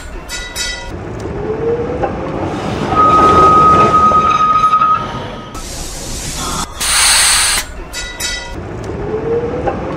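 Electric tram sounds: a burst of air hiss and a quick run of clicks, a motor whine rising as it pulls away, then the tram running with a steady high squeal for about two seconds. The hiss-and-clicks sequence starts again about seven seconds in.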